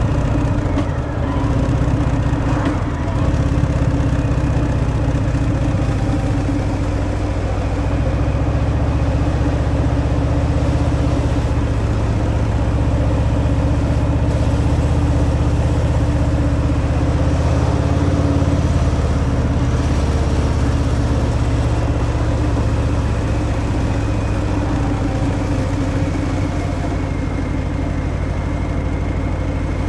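Harley-Davidson Fat Boy's Milwaukee-Eight 114 V-twin running steadily through its stock exhaust while the motorcycle is ridden, with road and wind noise.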